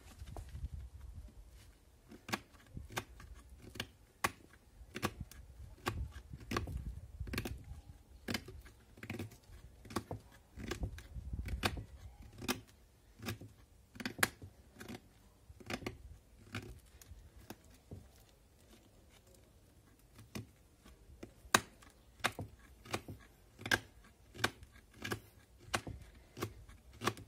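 Folding knife blade chopping a block of fire-starter tinder into small bits: a long run of sharp, irregular clicks, about one or two a second, with a pause of a few seconds about two-thirds of the way through.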